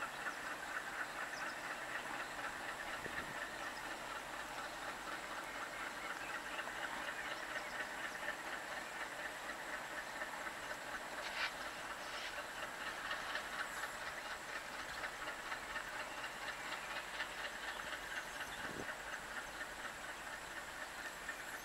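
Twin ALCO WDM-3A diesel locomotives hauling a passenger train, heard from afar as a steady running noise with a fast, light clatter.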